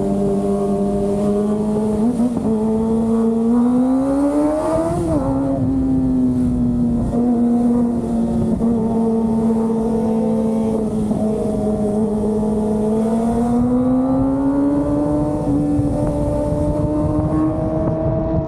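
Kawasaki ZX25R's 250 cc inline-four engine running under way at steady high revs; the revs climb for a few seconds, drop sharply about five seconds in at a gear change, hold, then climb again from about thirteen seconds in.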